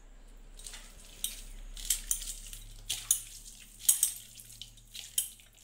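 A hand kneading raw minced beef and chopped onion in a stainless steel bowl for momo filling: wet squishing with irregular sharp clicks of the bowl and fingers against the steel.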